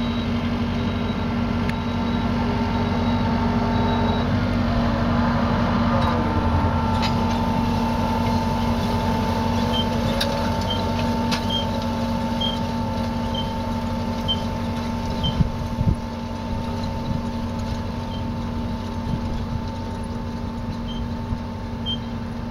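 Tractor engine running steadily as it pulls a Nordsten seed drill through a field, slowly fading as it moves away. Two sharp knocks a little past the middle.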